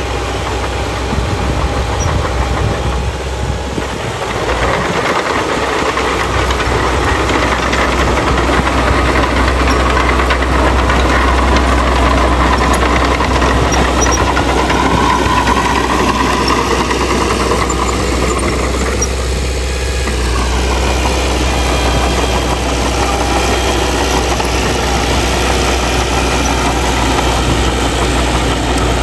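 Heavy diesel earthmoving machinery running steadily under work, with a strong low engine hum, and the engine note dipping and shifting briefly about two-thirds of the way through.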